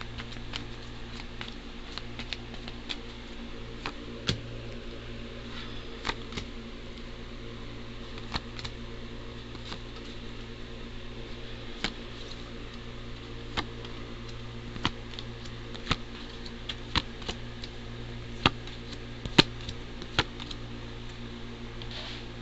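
Tarot cards being dealt and laid down one at a time on a wooden tabletop: irregular light taps and card flicks, the sharpest few near the end. A steady low electrical hum runs underneath.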